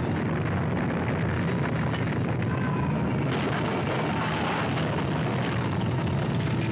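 Deep, continuous rumble of an earthquake tremor shaking a timbered mine tunnel.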